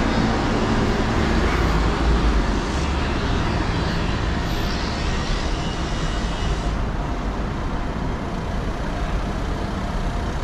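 City street traffic: motor vehicles running and passing, a steady wash of engine and road noise, with a low engine hum in the first couple of seconds.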